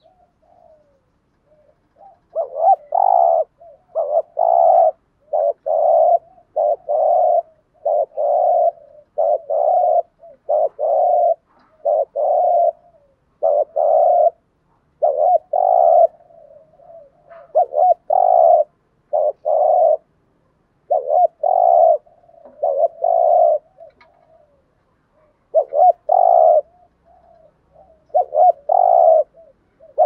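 Spotted dove cooing over and over: a long run of low coos in short phrases, starting about two seconds in, with brief pauses and a few softer notes between.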